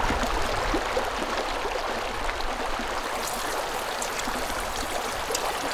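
Shallow mountain stream running over stones: a steady rush of water.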